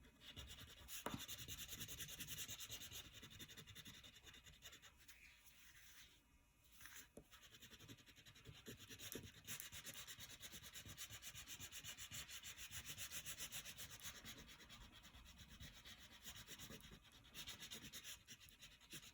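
Crayon rubbing on paper in quick, continuous back-and-forth coloring strokes, faint throughout, with a brief pause about six seconds in.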